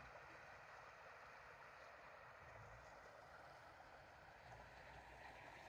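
Near silence: a faint, steady outdoor hiss of background noise.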